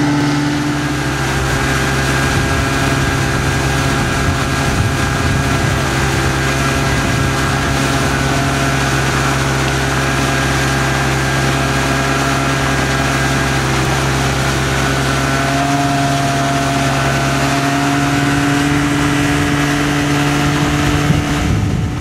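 Motorboat engine running with a steady hum at a constant speed, under a constant rushing noise.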